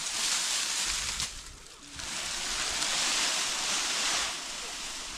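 Dry leaves rustling and crackling as they are pushed and packed into a woven bamboo basket, in two long stretches, the second starting about two seconds in.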